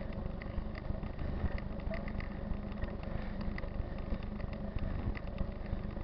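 Mountain bike rolling along a paved road with wind buffeting the camera microphone: a steady rumble and rush, broken by frequent small clicks and rattles.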